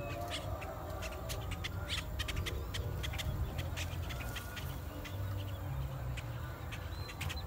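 Great-tailed grackle calling: an irregular series of sharp clicks and clacks, with a short run of high whistled notes near the end, over a low rumble.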